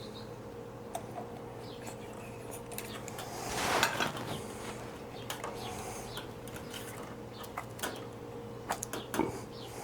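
Safety wire and hands working at a bolt head: small metallic clicks and ticks as the wire is threaded through the drilled hole, with one louder scraping rustle a little under four seconds in, over a steady low hum.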